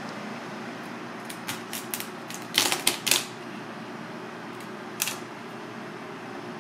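Kitchen knife chopping through a cooked mud crab's shell on a plastic cutting board: a quick run of sharp knocks and cracks starting about a second in, loudest just before the middle, then one more knock about five seconds in, over a steady background hum.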